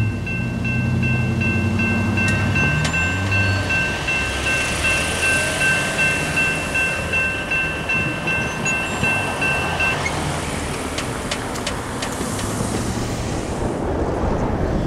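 Railroad grade crossing warning bell ringing steadily, cutting off about ten seconds in as the gates go up. Under it, a passing train's rumble and rhythmic clatter of wheels over the rail joints fades away.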